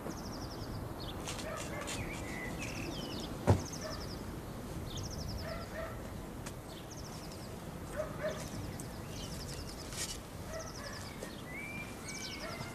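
Birds calling in the garden, with short high trills repeating every second or so and scattered chirps. A single sharp knock sounds about three and a half seconds in.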